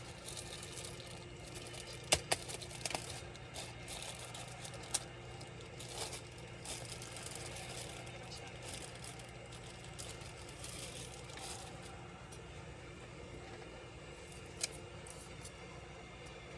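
Scattered small clicks and scrapes of hands and tools handling the plastic and metal parts of a laptop being taken apart, with the sharpest clicks about two, three and five seconds in and again near the end, over a steady low hum.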